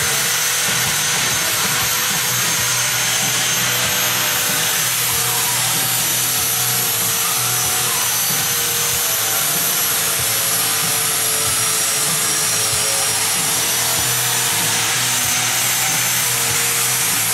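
Angle grinder grinding steel: a loud, steady rushing noise with a thin high whine that holds without a break.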